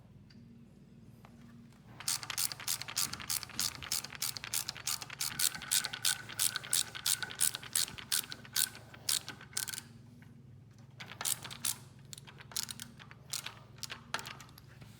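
Rapid metal ratcheting clicks, about five a second for some eight seconds, then a few shorter, slower runs of clicks.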